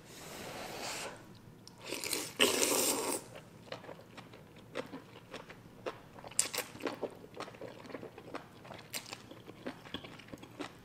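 A person eating noodles close to the microphone: a loud slurp lasting about a second, then steady chewing with many small, wet mouth clicks.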